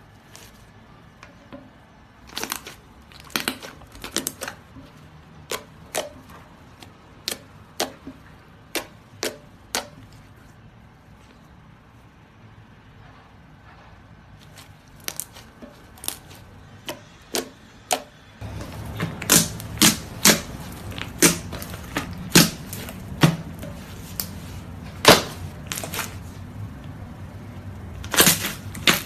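Slime being squeezed and worked, giving sharp clicking pops about one or two a second, with a pause in the middle. About two-thirds through the background gets louder and the pops go on over it.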